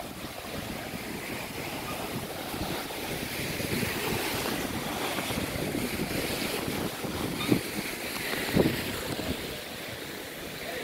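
Wind buffeting the microphone, a steady rushing noise, with a couple of louder thumps about three-quarters of the way through.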